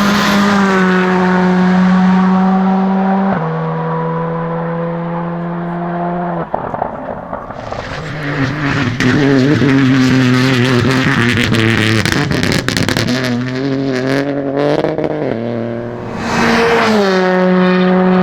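Rally car engines at full throttle. The engine note drops in steps at gear changes during the first few seconds. A rougher stretch in the middle is full of sharp pops and crackles. Near the end an engine note swells and then falls away as a car goes past.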